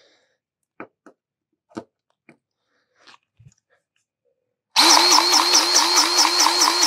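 A few faint clicks and taps, then about two-thirds of the way in a cordless grease gun's motor starts and runs loudly, pulsing about six times a second as it pumps grease into the mower's front caster-wheel fitting.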